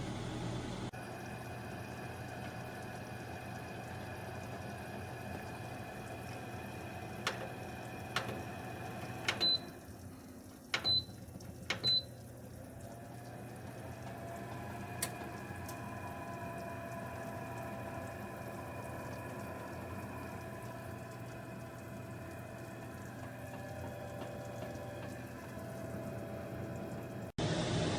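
Countertop oven running with a steady hum. A few clicks are followed by three short, high electronic beeps about a second apart, then a slight rising tone.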